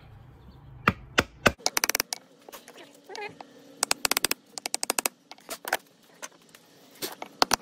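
A hammer striking a wooden block held against a blower motor's steel flange, trying to knock loose a stuck bracket. The playback is sped up fourfold, so the sharp knocks come in fast clusters.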